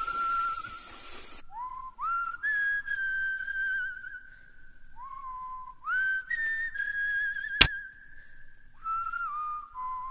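Whistling: a string of held notes, each scooping up at its start and wavering slightly, some stepping down in pitch. A single sharp click comes about three-quarters of the way through.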